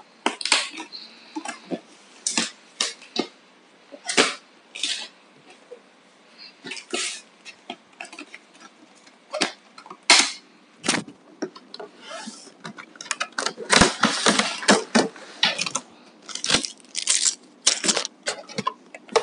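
Unboxing noises: a keyboard box and its plastic packaging being opened and handled, an irregular run of rustles, scrapes and knocks that grows busier towards the end.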